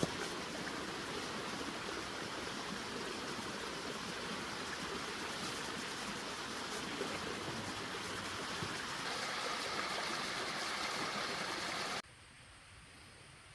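Steady rush of flowing water, an even hiss and rumble with no rhythm. It cuts off abruptly about twelve seconds in, leaving a much quieter background with a faint high chirp near the end.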